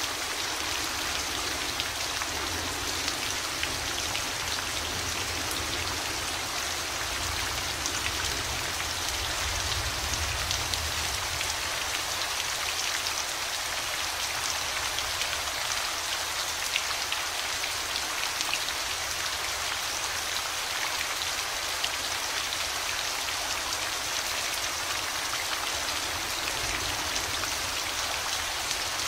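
Steady rain falling, a continuous hiss with the patter of individual drops, over a faint low rumble.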